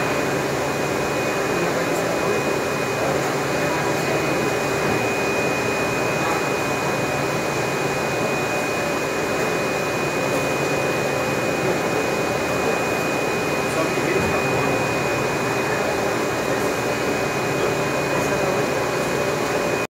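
Wohlenberg MCS-3 guillotine paper cutter's motor running steadily with the machine switched on: an even mechanical hum with a constant high whine over it.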